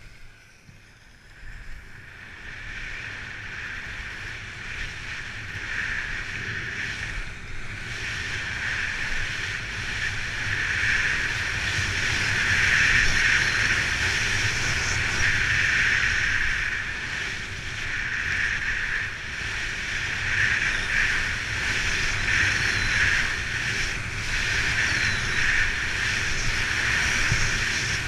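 Skis hissing and scraping over groomed piste snow during a fast run, with wind rumbling on the microphone; the sound grows louder over the first dozen seconds and then holds steady.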